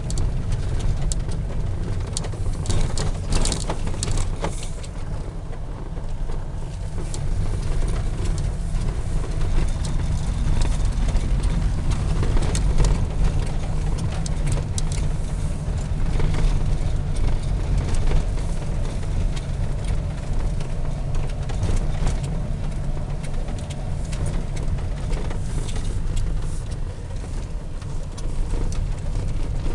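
Renault Trafic van driving slowly over a rough, broken road, heard from inside the cab: a steady low rumble of engine and tyres with scattered knocks and rattles from the bumps.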